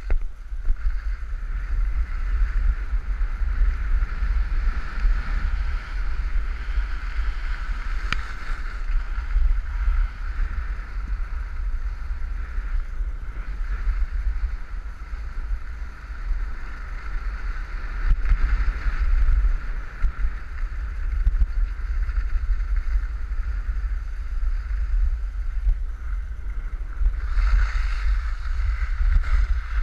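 Wind buffeting a head-mounted action camera's microphone, a steady low rumble with a hiss over it, as the wearer moves over the snow.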